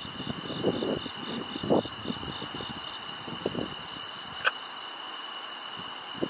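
Crickets chirping steadily in a high, evenly pulsing trill, while a man softly hums a tune in nonsense 'tta-tta' syllables over the first few seconds. One sharp click about four and a half seconds in.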